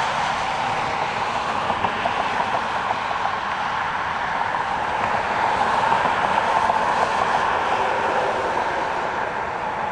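Jet airliner engines: a steady, broad rushing noise that swells slightly about six seconds in.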